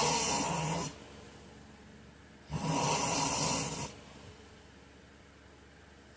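A sleeping man snoring: one snore dies away about a second in, and another, lasting over a second, comes about two and a half seconds in. Each snore is a low buzzing tone under a breathy rush.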